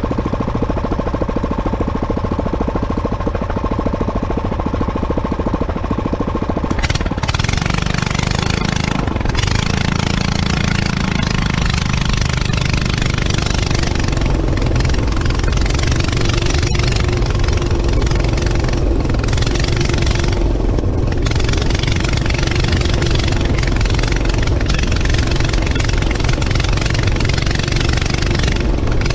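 Go-kart engine idling with a steady chug, then revving up about seven seconds in as the kart pulls away and running under load, with a steady rush of wind and road noise over it.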